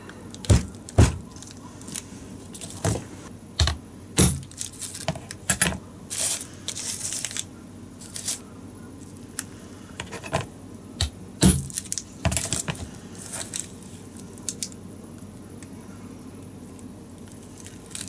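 Old kitchen knife pressed down through dishwasher tablets in their plastic wrappers: a string of sharp, irregular cracks and knocks as the blade breaks through the pressed tablets, with a stretch of plastic wrapper crinkling. The sharp sounds die out about two-thirds of the way in.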